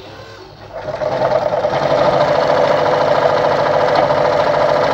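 Brother Pacesetter ZU2-605 electric sewing machine starting up about a second in, then running steadily at speed as it sews a decorative pattern stitch.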